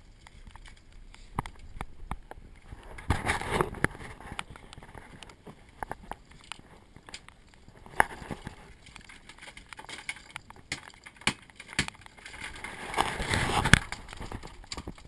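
Wet rubberised rain gear rustling and brushing against the camera, loudest twice: about three seconds in and again near the end. Scattered clicks and knocks run between them.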